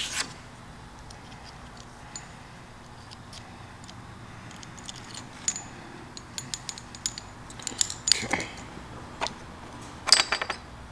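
Light metallic clicks and clinks of a spring-loaded cylinder hone being handled as honing stones are fitted onto its arms. The clicks are sparse at first, grow busier in the second half, and end in a louder rattle near the end.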